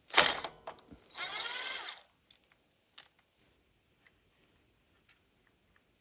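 Tool work on a ride-on mower's engine mounting: a sharp metallic clatter, then about a second of ratcheting or whirring, then a few scattered faint clicks.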